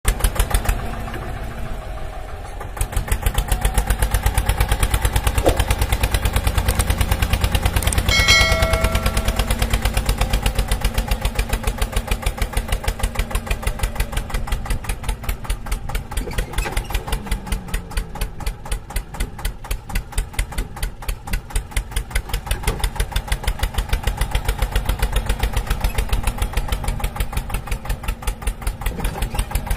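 Small engine of a child-sized mini tractor built to look like an Eicher, running with a steady, regular beat as it drives. A brief high tone sounds about eight seconds in.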